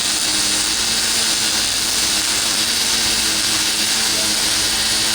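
Electric arc welding: the arc gives a steady, loud, even hiss.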